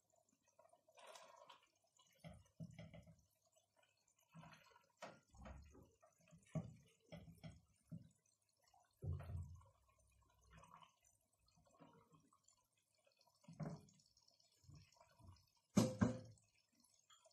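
Faint, scattered soft pats and wet taps as fried potato slices are laid one by one onto tomato sauce in a stainless-steel pan, with light paper-towel rustling; a louder sharp knock near the end.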